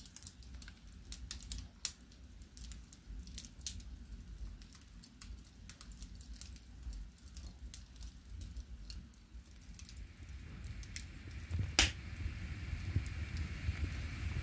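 Firewood burning in a stove's firebox, crackling with irregular sharp snaps. One loud pop comes a little before the end, as a low rumble of the flames builds.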